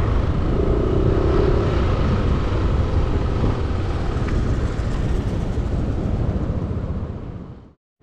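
Motorcycle on the move: steady rush of wind on the microphone over the running engine, fading out just before the end.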